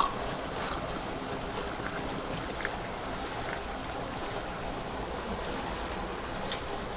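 UCC drink dispenser pouring a drink into a paper cup: a steady stream of liquid over a low steady hum.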